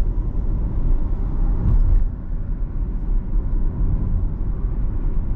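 Steady low road rumble heard inside the cabin of a moving Tesla electric car.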